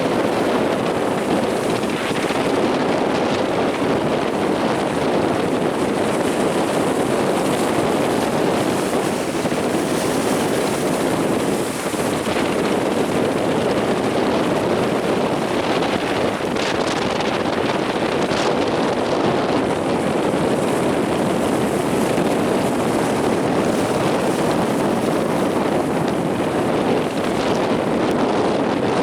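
Strong wind blowing across the microphone over the steady rush of heavy surf.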